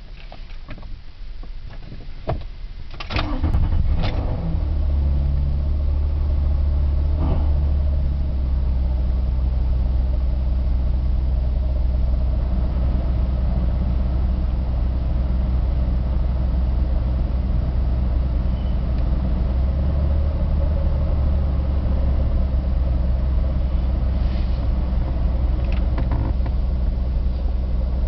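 A 2000 Ford Taurus's DOHC 3.0 V6 is cranked and catches about three seconds in, then settles into a steady idle. A few seconds after it starts there is a brief grinding noise, which the owner guesses is the AC compressor kicking on. The idle rises again about two-thirds of the way through, and near the end the climate control's OFF button gives a small creak.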